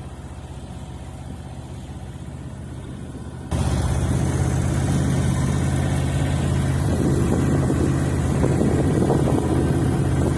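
Boat motor running steadily with a low, even hum. It jumps abruptly to much louder about three and a half seconds in.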